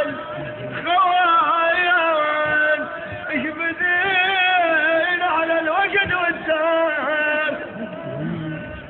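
A man's voice chanting Iraqi tribal poetry in a slow, drawn-out sung line, holding long wavering notes with short breaks between phrases.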